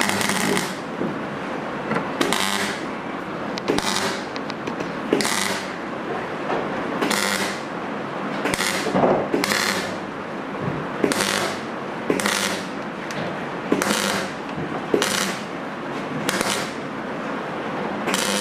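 MIG welder stitching a wheel-arch repair patch in thin car body sheet steel with a series of short tack welds. About a dozen brief bursts, each about half a second, come at an even pace of one every second and a half or so, over a steady background noise.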